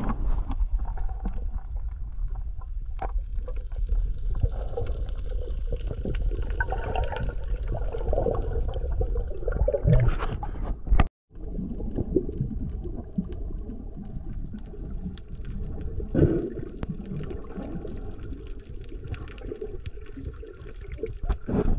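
Underwater ambience heard through a submerged action camera: a steady muffled low rumble of moving water, with faint scattered clicks and bubbling from the divers' movements. The sound cuts out completely for a moment about halfway through.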